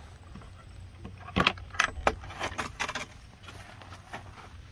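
Several short metallic clicks and rattles, a few in quick succession about one and a half to three seconds in, like small hardware jingling while being handled.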